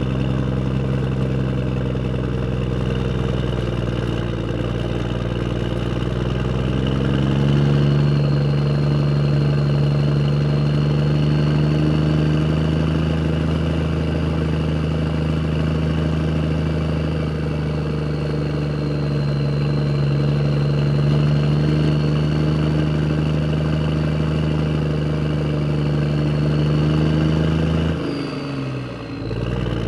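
Motor vehicle engine running steadily while driving. Its pitch steps up about a quarter of the way in, then dips briefly and recovers near the end.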